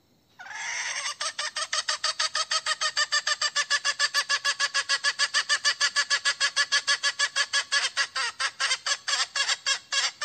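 Decoy hen (ไก่ก๋อย) calling for a cockerel: a long, even run of rapid, sharp notes, about six or seven a second, starting about half a second in without a break.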